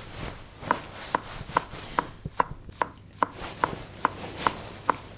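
Steady, evenly spaced knocking, a little over two sharp strikes a second, each with a short ringing tone, over a constant hiss.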